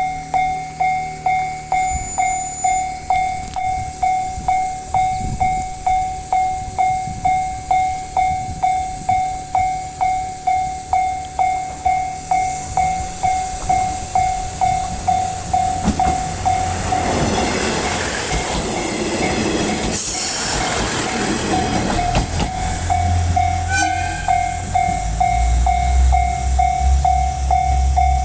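Level-crossing warning bell ringing about one and a half times a second while a KiHa 110 series diesel railcar passes over the crossing. The train's passing noise swells and peaks between about seventeen and twenty-one seconds in, and a low rumble builds near the end.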